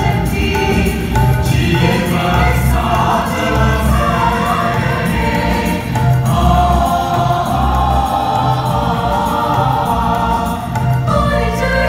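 A mixed choir of men and women singing a medley of Hindi film songs, with a steady, bass-heavy beat in the accompaniment.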